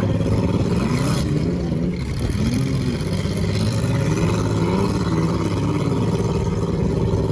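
Demolition derby car engines running and revving up and down, with one sharp bang about a second in.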